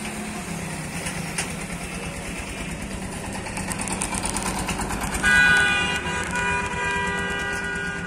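A motor vehicle running past, with a long, loud horn blast starting about five seconds in and held to the end.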